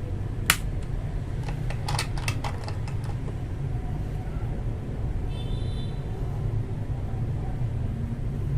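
Akko Matcha Green mechanical keyboard switches clicking as they are handled and pushed into a keyboard: one sharp click about half a second in, then a quick run of lighter clicks. A steady low hum runs underneath.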